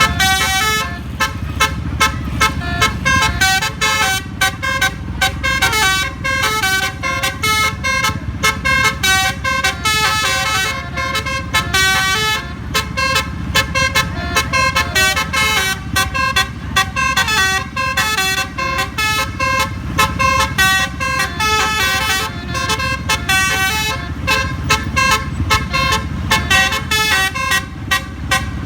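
Bus telolet horn, a Basuri-type musical air-horn module, playing a fast melody of short stepped notes without a break, over a steady low rumble.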